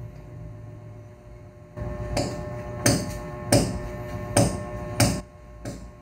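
Bedding being shaken out and beaten while making a bed: a run of sharp cloth flaps and slaps, five loud ones about three-quarters of a second apart starting about two seconds in, then a weaker one near the end, over a faint steady hum.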